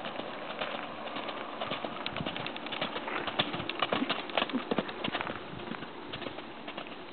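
Hoofbeats of a chestnut Arab/Welsh cross gelding cantering on the gravel footing of a riding arena. The beats are loudest in the middle and grow fainter near the end as the horse moves away.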